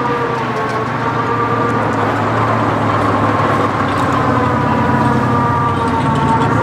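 Diesel engine of a hay boom truck running steadily, its pitch drifting gently up and down as the boom works.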